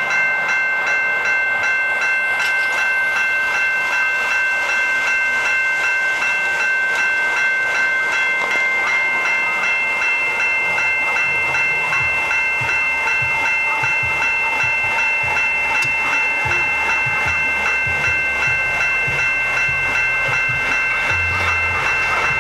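Railway level-crossing warning bell ringing over and over at a quick, even pace as the crossing lights flash for an approaching train. A low rumble builds up underneath in the second half.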